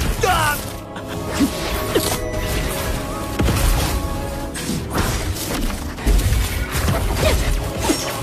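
Animated fight-scene soundtrack: background music under a run of blast and impact sound effects. Sharp hits land about every second or so, with low rumbles beneath them.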